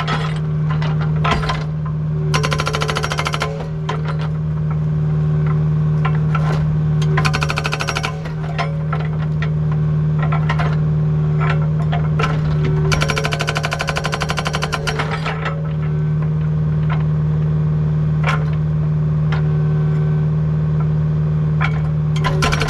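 Agrotk hydraulic breaker hammer on a Kubota U55 mini excavator pounding rock in several bursts of rapid blows, with scattered single knocks between. The excavator's engine runs steadily underneath.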